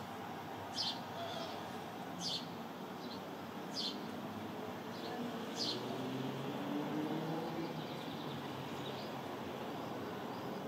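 House sparrow chirping: single short chirps about every one and a half seconds, then fainter and more scattered after about six seconds. A faint low hum rising in pitch runs under the middle.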